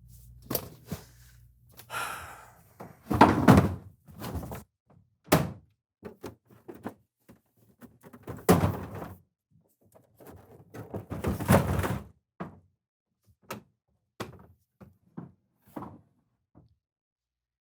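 An irregular series of thuds, knocks and bangs in a small room, like a door or furniture being knocked about. The loudest come about three, eight and a half and eleven seconds in, followed by a few fainter single knocks.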